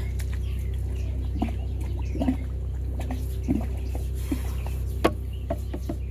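Hydro-jetter running steadily with a low drone while it jets out a sewer main line. About seven short sharp sounds come over it, the loudest about five seconds in, and birds chirp faintly.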